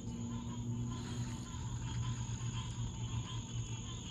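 Night insect chorus: a steady high-pitched trill of crickets, over a low steady hum.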